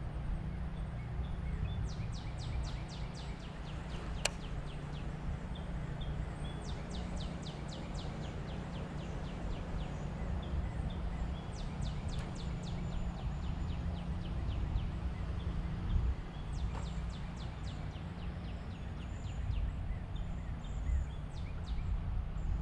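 Wind buffeting the microphone as a steady low rumble, with several bursts of rapid, high ticking and a couple of single sharp clicks over it.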